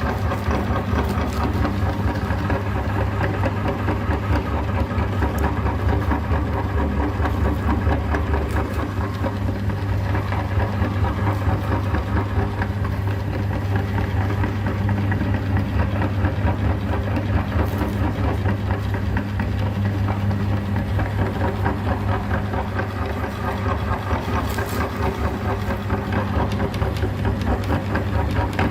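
Electric meat grinder's motor running steadily with a strong hum and a fine rapid rattle.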